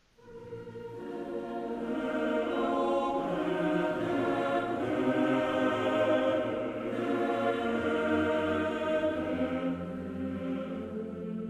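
Choral background music: voices holding long, slow chords, fading in over the first couple of seconds.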